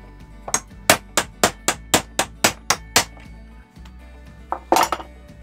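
A hammer striking a steel pin punch about four times a second, ten sharp metal blows, driving the pivot pin out of a rusty pipe wrench. A louder knocking clatter follows near the end.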